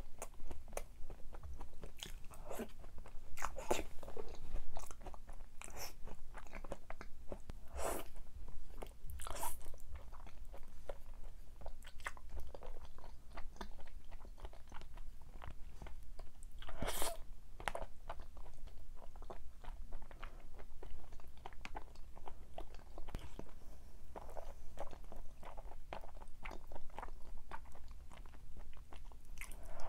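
A person chewing and biting crunchy food close to the microphone, with irregular crunches and a few sharper, louder bites.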